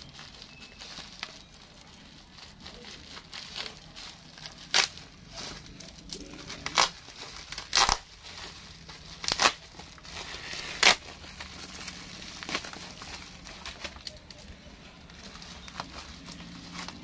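Clear plastic wrapping and tape crinkling and tearing as a long package is cut open by hand, with about five sharp rips through the middle of the stretch.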